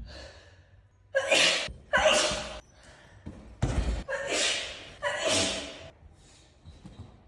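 A person's sneezing fit: about five loud sneezes in quick succession, each a sharp, noisy blast, from about a second in to about six seconds in.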